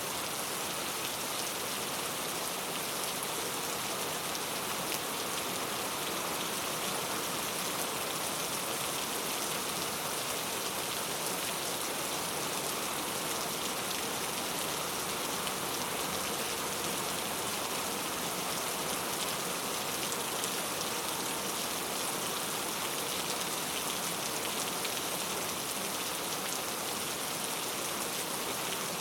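Steady rainfall: an even, unbroken hiss of many small drops that holds the same level throughout.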